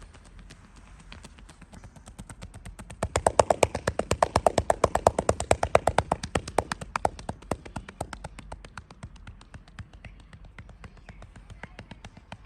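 Rapid, even percussive massage strokes, the masseur's hands tapping and slapping on the body at about seven or eight strokes a second. They start faint, grow loud about three seconds in, and fade again after about seven seconds.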